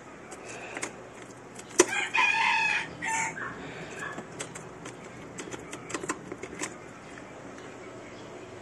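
A rooster crows once, about two seconds in, lasting about a second and a half. Several sharp clicks come with it: the loudest just before the crow, and a few more around the six-second mark.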